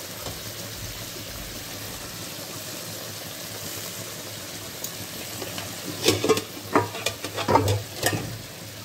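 A wok of fish curry cooking in a thin tomato-and-onion gravy with a steady bubbling, sizzling hiss. About six seconds in, a cluster of louder sharp pops and clicks comes over it for a couple of seconds.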